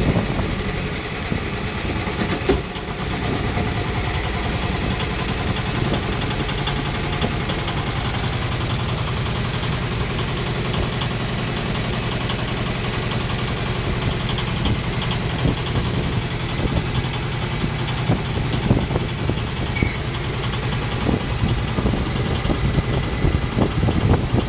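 Small river boat's engine running steadily under way, a continuous low hum with a fast even beat, over the rush of water and wind past the hull.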